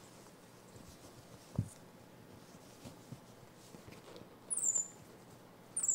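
Baby cinnamon capuchin monkey giving two short, high-pitched squeaks that fall in pitch, near the end, with a thump about a second and a half in.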